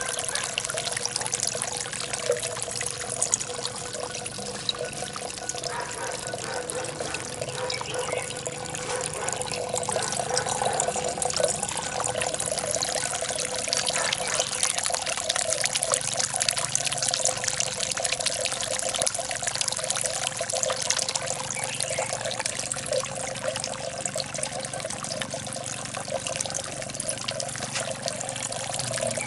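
Water pouring from a stoneware-jar fountain into a small pond: several thin streams falling and trickling, a steady splashing.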